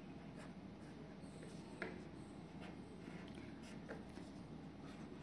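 Faint scratching and a few soft ticks of a black marker pen drawing short strokes on paper.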